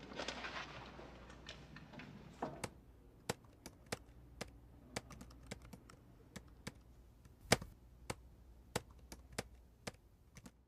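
Computer keys being pressed: scattered single clicks, a couple a second at uneven spacing, with one louder click about seven and a half seconds in, over a faint low room hum.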